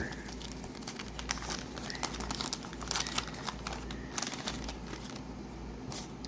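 Hockey card pack wrapper being crinkled and torn open by hand: a run of small, irregular paper crackles.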